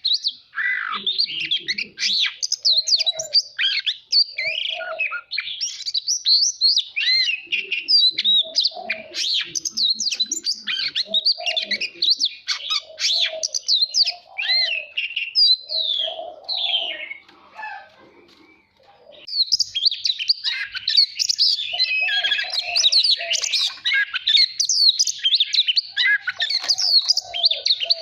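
Oriental magpie-robin singing a long, varied song of quick whistled notes and trills, with a lower note repeating beneath it. The singing stops for a moment about two-thirds of the way through, then resumes more densely.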